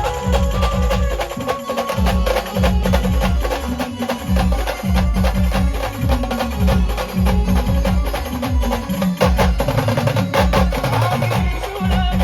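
A band playing an instrumental passage with no singing: loud drums beat a fast, driving rhythm with sharp percussion clicks, under a held melody line.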